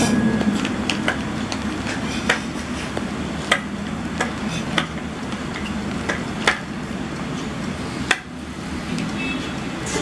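Hard plastic toy parts clicking and knocking together as pieces of a toy scooter are fitted on by hand: several sharp, separate clicks about a second apart, over a steady background hiss.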